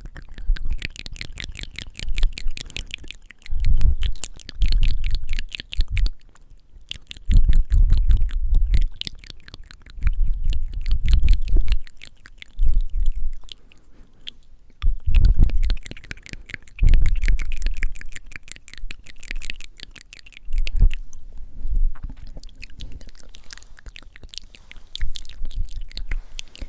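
Close-miked wet mouth sounds: a rapid, continuous run of small lip and tongue clicks, broken several times by bursts of breath blown straight onto the microphone as a low rumble.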